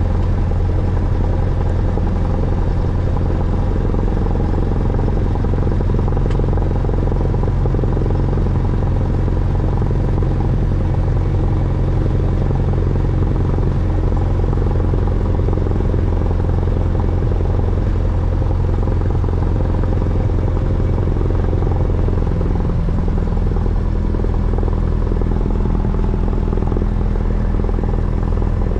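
Cessna 172's piston engine and propeller running steadily at low taxi power, heard inside the cockpit as a constant low drone. The engine note shifts slightly late on.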